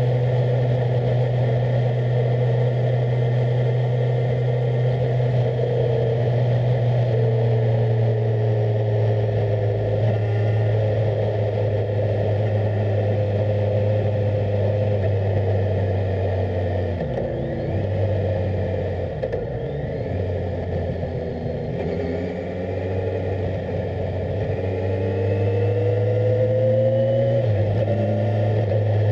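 Kawasaki Z1000SX's inline-four engine heard on board while riding, running steadily at first. About two-thirds of the way through, the engine note softens and drops off. It then climbs in pitch again under throttle and falls back suddenly near the end.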